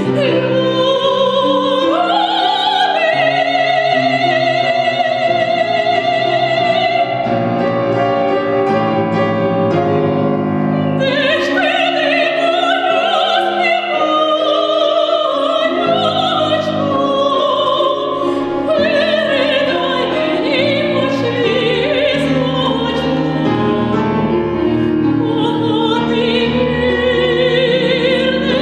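Female classical singer singing opera in long held notes with a wide vibrato, accompanied by a Seiler grand piano.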